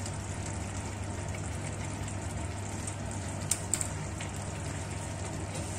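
Chicken curry simmering in a stainless steel kadai over a low gas flame: a steady bubbling hiss over a low hum. Two light clicks come about three and a half seconds in.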